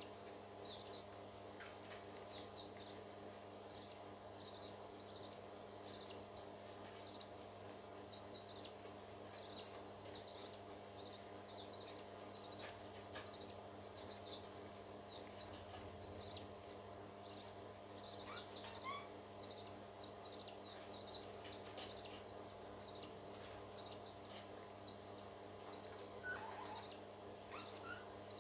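Birds chirping: many short, high chirps come in quick runs, over a steady low hum.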